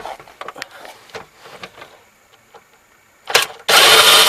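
Small metallic clicks and taps of a tool working a bolt loose under the steering-column trim. Near the end there is a sharp knock, then a loud rasping burst lasting about half a second.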